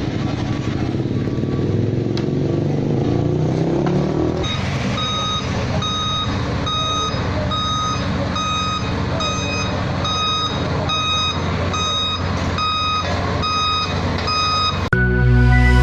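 Heavy vehicle engine running, its pitch rising over the first few seconds, then a reversing alarm beeping about once a second over the engine as a road-works vehicle backs up. Music starts right at the end.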